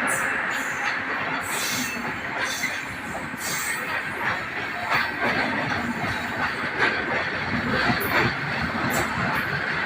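Telangana Express train running on the track: a steady rumble and rushing noise of wheels on rails, with scattered sharp clicks from the wheels.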